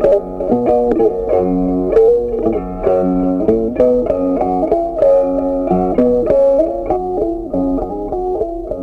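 Background music: a plucked guitar tune played in quick single notes.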